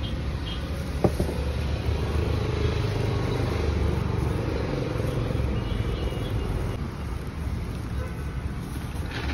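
Steady low rumble of road traffic, with one sharp click about a second in.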